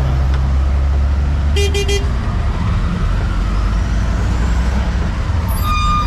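Street traffic in a jam: a steady low rumble of engines with vehicle horns honking, a quick three-toot burst about a second and a half in and another horn near the end.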